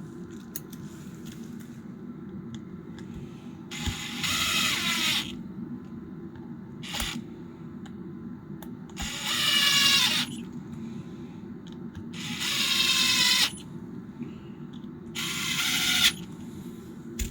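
DeWALT cordless impact wrench, fitted with a replacement motor, run briefly four times. Each run is a motor whine of about a second that rises in pitch and then cuts off.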